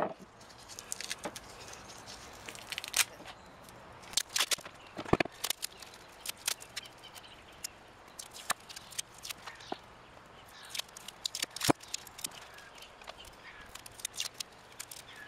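Old tape being peeled and picked by hand off an engine's aluminium side cover: a run of irregular crackles and sharp tearing clicks.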